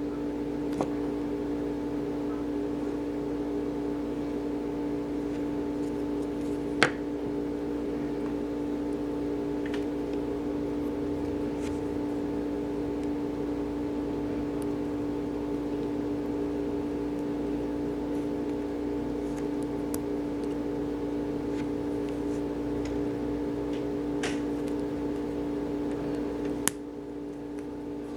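Steady low machine hum, like a fan or electrical appliance running in the room, with a few sharp light clicks. Near the end the level drops suddenly right after a click.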